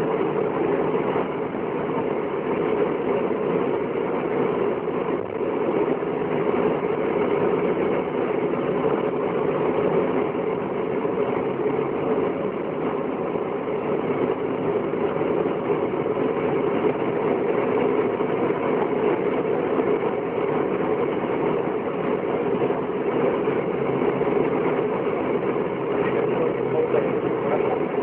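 Steady engine and road noise of a convoy vehicle driving at an even pace, heard from inside the cab.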